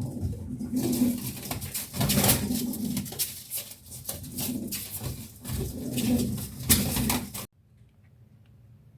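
Domestic pigeon cooing several times in low repeated calls, amid scratchy noises. The sound cuts off suddenly about seven and a half seconds in, leaving faint background noise.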